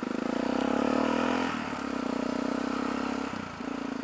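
Yamaha XT660X's single-cylinder engine pulling under throttle, its pitch rising for about a second and a half. Then comes a short break and the engine runs steady, with another short break near the end.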